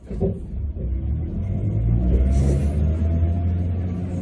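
Sapporo streetcar pulling away from a stop: the traction motor and wheels on the rails start up suddenly and build into a steady low rumble, with a faint rising motor whine.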